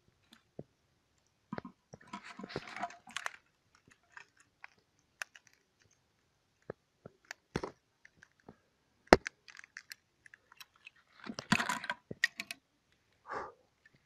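Stiff cured fibreglass-and-epoxy parts handled with a gloved hand: scattered clicks, knocks and crunchy crackling, busiest about two seconds in and again near the end, with one sharp knock a little past the middle the loudest.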